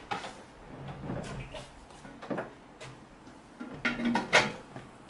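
Bread dough being kneaded by hand on a wooden table: irregular soft thumps and slaps of the dough pushed and dropped against the wood, the loudest pair about four seconds in.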